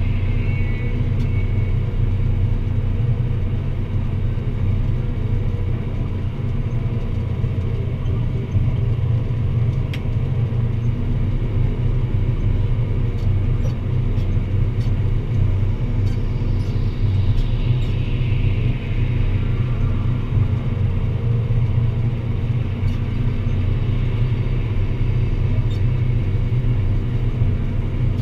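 Deutz-Fahr Agrotron 165 MK3 tractor's six-cylinder diesel engine running steadily under load while pulling a plough.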